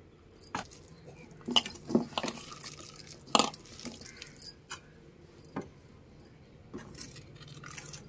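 A steel spoon scooping and tapping on a steel plate of gram flour, with irregular clinks, while onions and flour are mixed by hand in a steel bowl.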